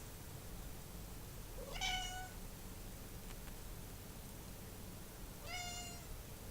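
Domestic cat meowing twice, a few seconds apart, each meow a short pitched call of about half a second, the first rising at its start. A steady low hum lies underneath.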